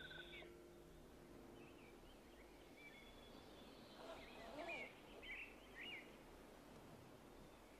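Faint outdoor ambience with scattered bird chirps, short calls coming in two small clusters.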